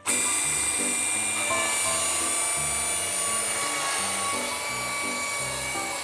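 Portable chain-type sawmill's saw unit cutting lengthwise through a log: a loud, steady whine with hiss that starts suddenly and holds. Background music plays underneath.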